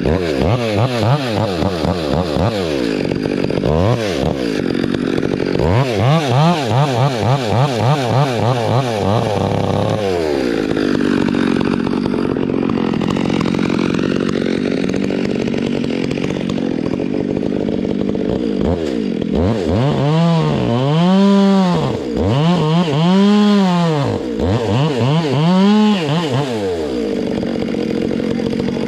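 Chainsaw running and cutting, its engine pitch wavering and then rising and falling repeatedly as the throttle is worked, with four big revs near the end.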